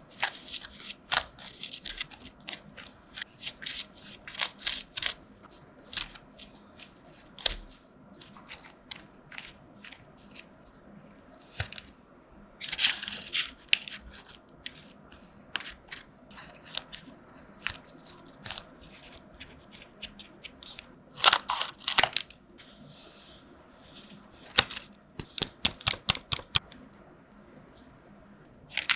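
Close-up handling sounds: a string of sharp taps and clicks, with a couple of short bursts of crinkling or tearing, once about thirteen seconds in and again a little past twenty seconds.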